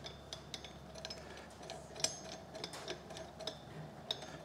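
Light, irregular metal clicks and clinks as a slide hammer shaft is fitted and screwed onto a blind bearing puller.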